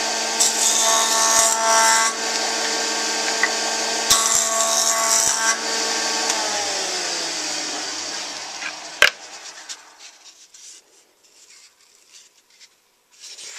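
Jointer running, with two passes of a juniper (larch) board's end across the cutterhead, about half a second in and about four seconds in, each adding a harsher cutting hiss. About six seconds in the motor is switched off and winds down, falling in pitch, with a single sharp knock near the ninth second.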